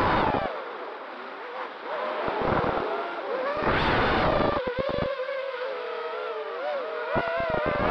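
Quadcopter's electric motors and propellers whining, the pitch wavering up and down with throttle changes. Gusts of wind buffet the onboard microphone several times, as low rumbling bursts.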